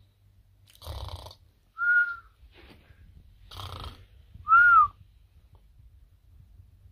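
A man snoring in the comic whistling style: twice, a rough snore on the in-breath is followed by a short high whistle on the out-breath. The second whistle bends up and down and is the loudest.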